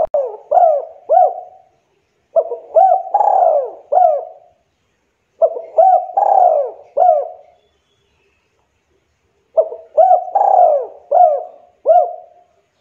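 Spotted dove cooing its song: repeated phrases of four or five quick, bending coos, each phrase about two seconds long. One phrase is already ending at the start, and three more follow after pauses of about a second to two seconds.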